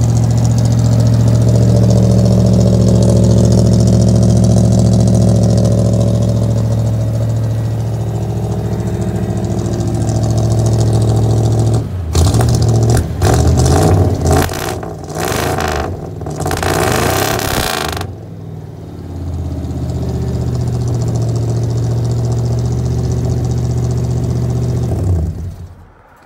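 Ford 302 V8 with glasspack exhaust idling with a steady deep drone. About halfway through, several seconds of loud rustling noise on the microphone cover it, then the engine is heard again until the sound cuts off sharply near the end.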